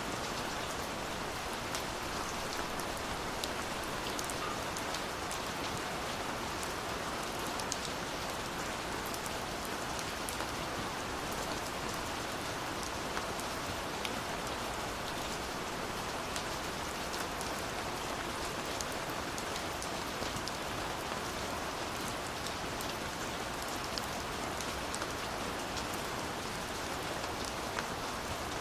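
Steady rain falling, a continuous hiss with many scattered individual drop ticks.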